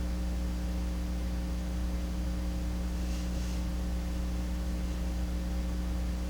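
Steady electrical mains hum with a faint hiss under it, and a faint brief rustle a little after three seconds in.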